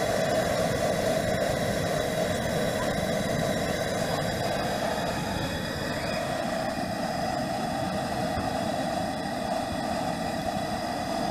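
Propane turkey-fryer burner running under the scalding pot: a steady rushing noise that shifts slightly in pitch about six seconds in.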